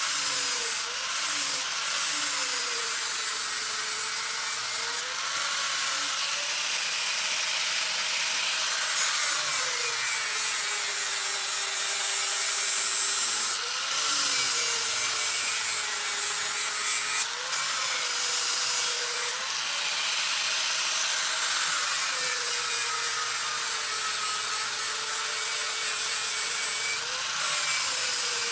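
Electric grinder grinding a steel knife blade cut from an old leaf spring, with a steady abrasive hiss. The motor's pitch sags each time the blade is pressed into the wheel and recovers as the pressure eases, several times over.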